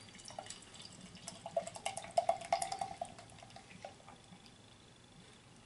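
Hazy pale ale poured from a can into a glass: the beer gurgles out of the can's opening in uneven pulses, loudest midway, and the pour dies away about four seconds in.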